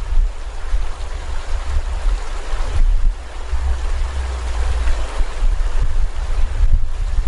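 Water rushing along a river, an even hiss, with wind buffeting the microphone in an uneven low rumble that is the loudest part.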